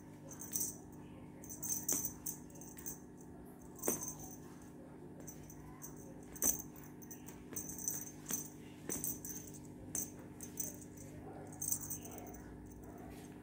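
Feather wand cat toy jingling in short, irregular shakes as it is waved and batted by the cats, with a few sharp taps in between.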